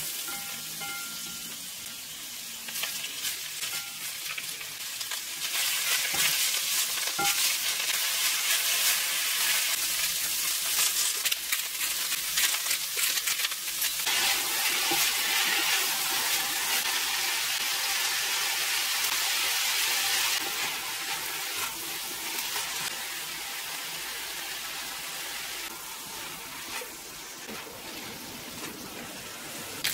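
Food sizzling in a frying pan, a steady hiss that grows louder a few seconds in and eases off again past the middle.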